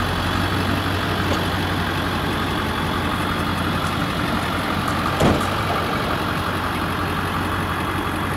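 Pickup truck engine idling steadily, with one short knock about five seconds in.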